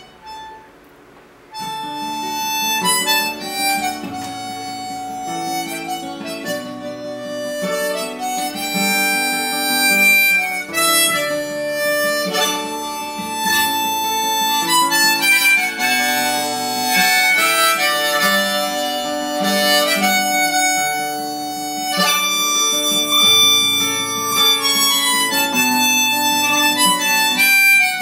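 Harmonica playing a tune over acoustic guitar accompaniment, starting about a second and a half in.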